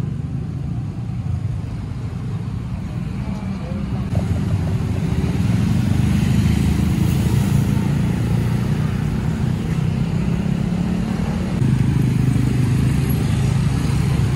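Road traffic of cars and motor scooters passing and idling, with engines running steadily. It gets louder about four seconds in.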